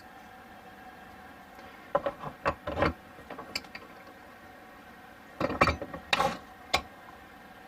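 Two short spells of clicking and clattering, as of a handle and fittings being worked by hand, about two seconds in and again about five and a half seconds in, over the steady hum of a portable air conditioner.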